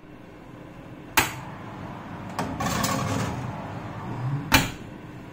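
Built-in kitchen oven door opened with a clunk about a second in, a clatter as the foil-lined metal baking tray goes onto the oven rack, then the door shut with a knock near the end.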